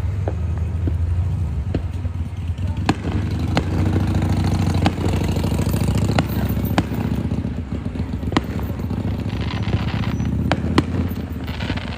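Fireworks show: about a dozen sharp bangs from aerial shells bursting at irregular intervals, over a steady low rumble.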